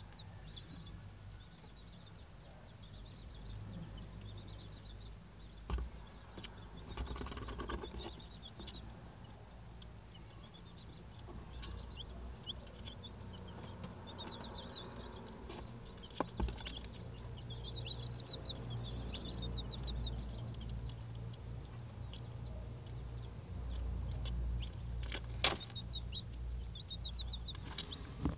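Eight-day-old silver laced Wyandotte chicks peeping in short chirps, on and off, over a steady low hum, with a few sharp clicks, the loudest near the end.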